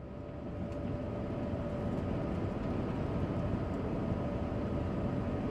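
Steady rumbling background noise with a faint hum, fading in from silence over the first two seconds, of the kind made by traffic or a running vehicle.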